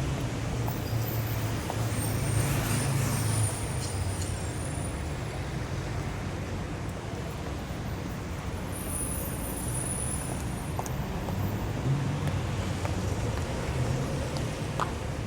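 City traffic: a steady mix of car and engine rumble, with vehicles passing that swell the rumble twice, faint high brake squeals, and a short sharp click near the end.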